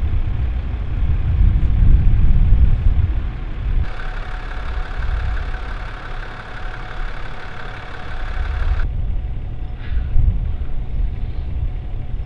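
Low, steady rumble of an idling vehicle engine, with a steady whine laid over it from about four to nine seconds in.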